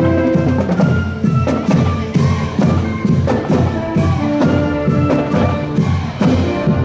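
A marching brass band playing a march while parading: brass and sousaphone carry sustained chords over a strong bass line, and the drums keep a steady marching beat of about two strokes a second.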